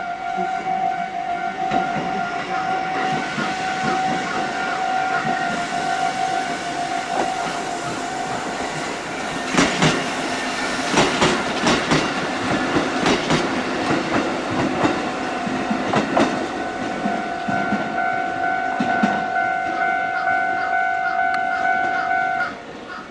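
Japanese level-crossing warning bell ringing its repeated two-pitch electronic tone while a Kotoden train passes, its wheels clacking over rail joints for several seconds midway. The bell stops shortly before the end.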